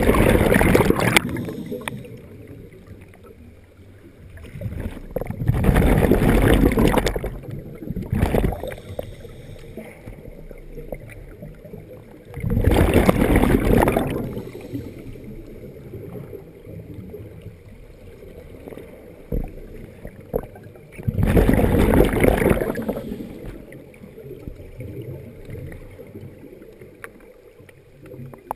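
Scuba diver breathing underwater through a regulator: four loud gushes of exhaled bubbles, each a second or two long and several seconds apart, with a quieter hiss between them.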